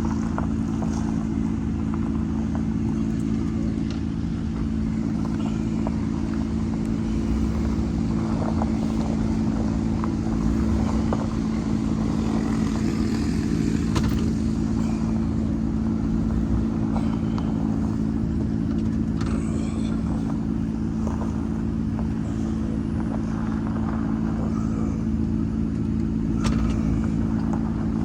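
Steady hum of a vehicle engine running at an even speed, with a few faint clicks and knocks.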